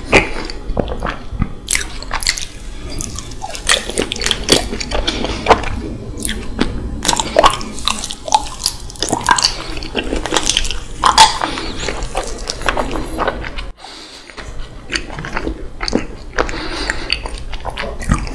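Close-miked chewing of raw honeycomb: a quick, irregular run of wet mouth clicks and lip smacks as the wax and honey are worked in the mouth, with a brief pause about fourteen seconds in.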